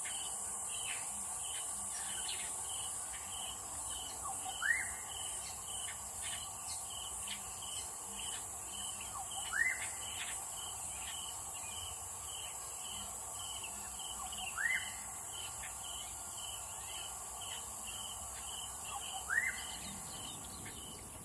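Outdoor bush ambience: a steady high insect hiss with a regular, repeating chirp, and a bird call sweeping upward in pitch four times, about every five seconds.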